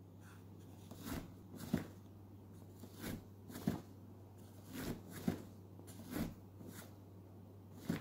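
Doona infant car seat's fabric canopy being pushed and pulled back and forth by hand, about five times: each stroke a soft fabric swish ending in a sharp click as the canopy hinge snaps into position. A steady low hum runs underneath.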